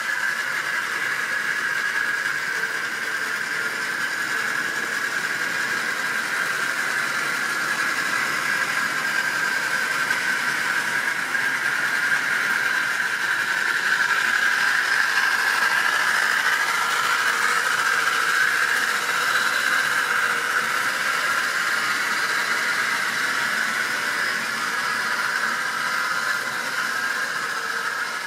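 Model railway train running around the track: the locomotive's small electric motor whines steadily and the wagon wheels run on the rails. It grows louder about halfway through as the train passes close.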